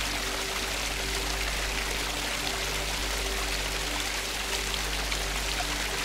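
Small stream rushing steadily as it cascades over rocks, with a few low, steady background-music tones underneath.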